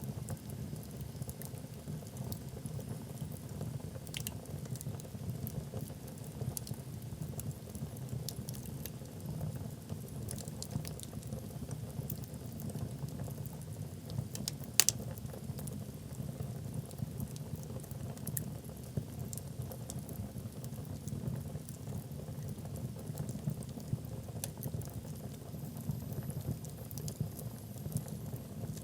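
Wood fire burning in a fireplace: a steady low rush of flames with scattered sharp crackles and pops from the logs, and one louder pop about halfway through.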